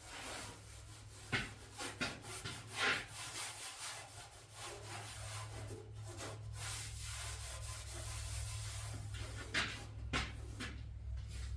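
A rag rubbing and wiping over the tractor's oily metal, in repeated strokes with a few louder short ones.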